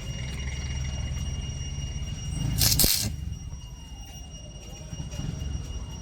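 Electric welding in progress: a steady low crackling hum, with a short, loud hiss about two and a half seconds in.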